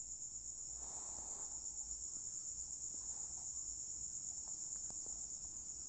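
Crickets trilling in a steady, high-pitched night chorus, with a few faint clicks near the end.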